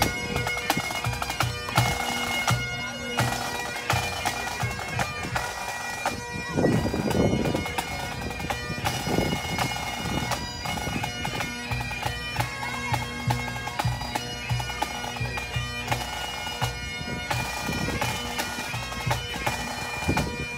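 Pipe band playing: Great Highland bagpipes sound a fast melody over their steady drones, with the band's drums beating under them.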